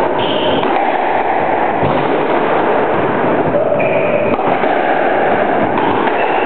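Squash rally: sharp racket-on-ball strikes roughly every two and a half seconds, with short squeaks of court shoes on the wooden floor, over a loud steady hiss.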